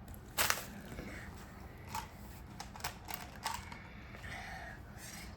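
Small buttons being placed and dropped into a fidget board's compartments, making scattered light clicks and taps, the sharpest about half a second in.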